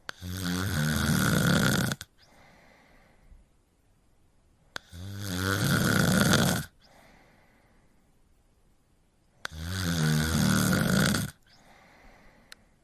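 A cat snoring in its sleep: three long, loud snores about two seconds each, coming roughly every four and a half seconds, with a faint breath between them.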